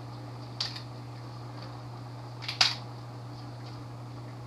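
Celery stalks snapped off the bunch by hand: a crisp crack about half a second in, then a louder double crack a little past halfway, over a steady low hum.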